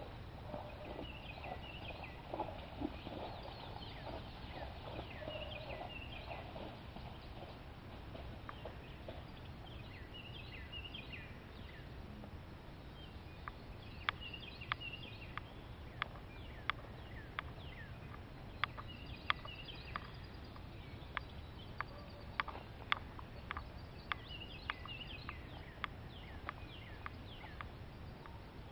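Birds calling in repeated short chirps over faint outdoor background noise. About halfway through, a run of sharp single clicks comes in, roughly one a second.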